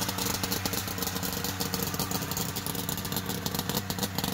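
A 600cc off-road buggy (crosskart) engine idling steadily.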